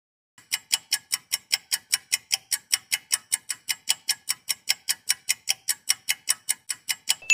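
Clock ticking sound effect: rapid, even ticks, about five a second, starting about half a second in, marking time passing while waiting.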